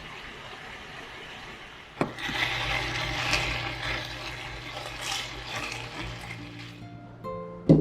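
A click, then water rushing for about five seconds before fading away, with soft plucked-string music coming in near the end and a sharp knock at the very end.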